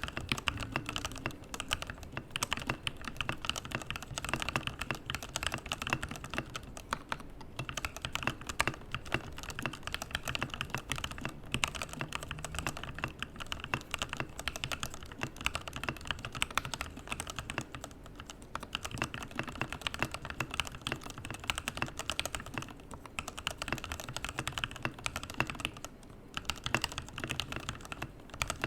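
Sound test of a freshly built Keychron mechanical keyboard with hot-swapped switches and keycaps: continuous fast typing, a dense stream of key clacks with a few short pauses.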